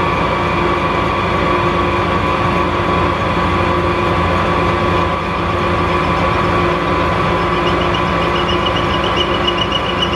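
Metal lathe running at speed, a steady whine over a low rumble. Near the end a rapid, light, high-pitched ticking sets in over it.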